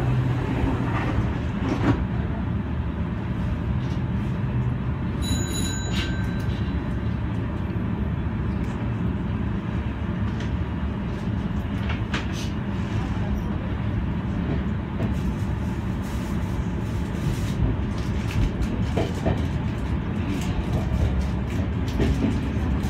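Senboku Rapid Railway 7020 series electric train heard from the cab as it pulls out of a station and runs along the line: a steady low rumble of motors and wheels on the rails. A brief ringing tone sounds about five seconds in.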